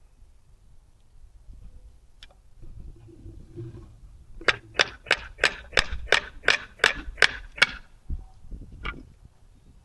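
Hammer tapping on metal: a quick run of about eleven sharp taps, roughly three a second, then one more tap a moment later.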